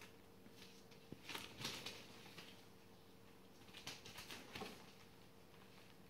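Faint rustling and light scratching of border collie puppies moving about on newspaper, in a few short bursts, about a second and a half in and again around four seconds in.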